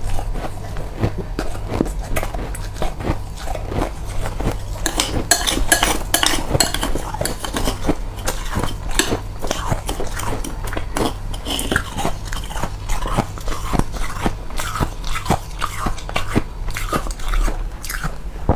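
A person biting and chewing powdery freezer frost: a dense, continuous run of crisp crunches, over a low steady hum.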